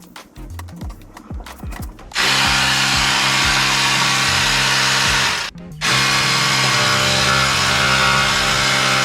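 Small electric air compressor running steadily with a buzzing motor note and a hiss of air, inflating a flat zero-turn mower tire. It starts after about two seconds of clicks and knocks and cuts out briefly about halfway through before running again.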